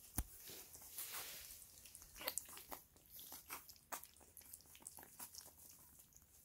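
Several puppies lapping and smacking at wet puppy mush in a stainless steel feeding pan: faint, irregular little clicks and wet smacks, several a second.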